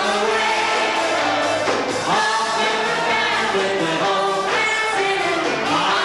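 A 1940s popular song with vocals over a band accompaniment, the singing held and gliding from note to note.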